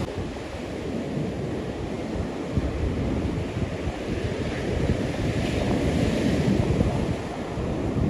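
Wind buffeting the microphone in uneven gusts over the steady wash of ocean surf.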